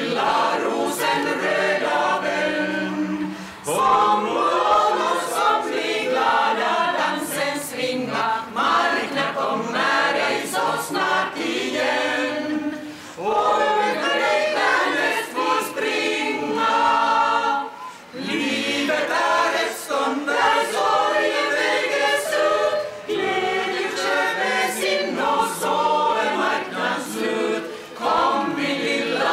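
A choir singing unaccompanied, a song in phrases with short breaks between them.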